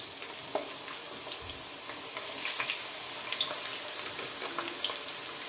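Sliced onions frying in hot olive oil: a steady sizzle with scattered small pops and crackles.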